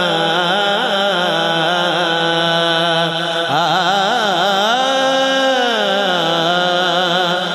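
A naat, an Urdu-Punjabi devotional poem in praise of the Prophet, sung by a male voice in ornamented, melismatic lines. About five seconds in, the voice holds one long note that rises and then falls away.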